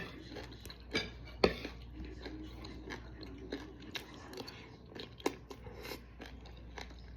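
Close-up crunching and chewing of a crispy fried chicken flauta (rolled taco), a scatter of sharp crackles with the loudest crunches about a second in, at a second and a half, and near five seconds.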